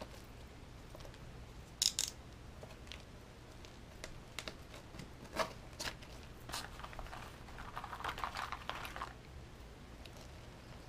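Small items being handled and slid into fabric pockets, with a few sharp clicks and knocks and a crinkling rustle about two-thirds of the way through.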